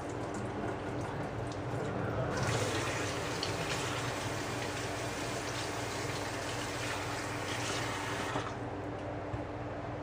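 Kitchen tap running into a stainless steel sink, turned on about two seconds in and shut off near the end, a steady rush of water lasting about six seconds.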